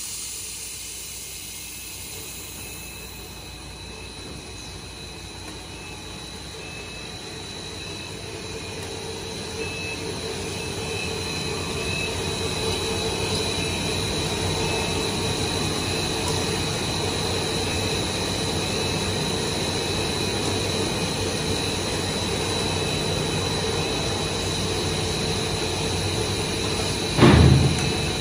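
2000 mm five-extruder stretch film machine running steadily: a constant mechanical hum and noise with a high steady whine, which grows louder about a third of the way through. A single short, loud thump comes near the end.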